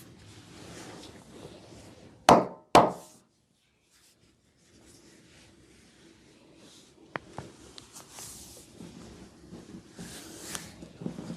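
Two loud, sharp impacts about half a second apart, each ringing briefly, followed by soft rustling with a few light clicks, as of hands working during a massage.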